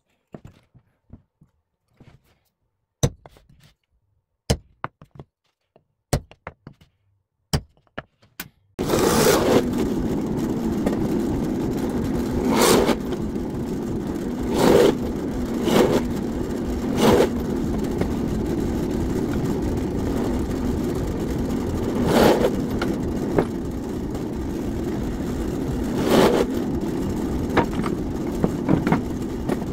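A few scattered sharp knocks and clicks of wood and tools being handled. About nine seconds in, a woodworking power tool starts abruptly and runs steadily, with brief louder surges every few seconds.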